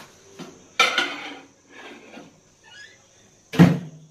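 A plate and metal wire stand clatter as they are set down inside a microwave oven, followed by a few lighter knocks. About three and a half seconds in, the microwave door thuds shut, the loudest sound.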